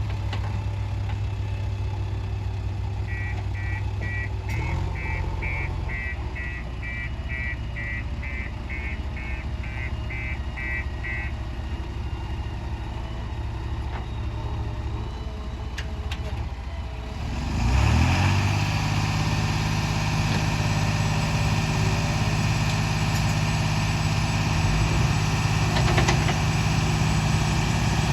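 JCB 3DX backhoe loader's diesel engine idling, with a run of rapid electronic beeps, about two a second, for several seconds. Past the middle, the engine revs up and holds at a higher, louder speed.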